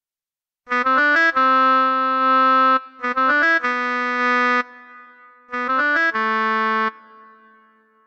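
Tone2 Gladiator 4 software synthesizer playing its 'FL Oboe MF' preset, an emulated oboe: three short phrases, each a quick run of short notes leading into a held note, with a reverb tail fading out after the last one.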